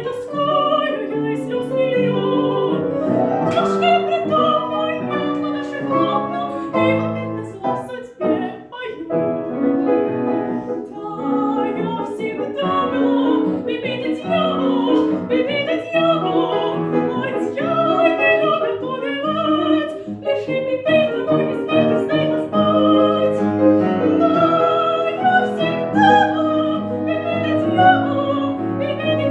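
A teenage girl's trained classical voice singing an operetta aria with vibrato over instrumental accompaniment, with short breaks for breath about eight seconds in and again about twenty seconds in.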